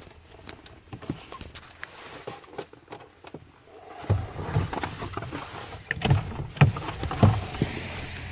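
Clicks, knocks and rustling of hands working the plastic glove box out of a pickup's dashboard, light at first and with louder thumps and clicks from about four seconds in.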